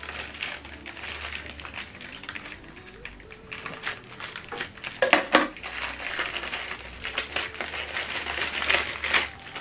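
Thin clear plastic bag crinkling and rustling as it is cut open with scissors and handled, with small clicks throughout and a burst of sharp crackles about five seconds in.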